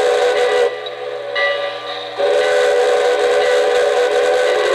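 Steam-whistle sound from an O-gauge model steam locomotive's onboard sound system, in two blasts. The first is a short blast that ends under a second in. The second is a long, steady blast that starts about two seconds in and is still sounding at the end.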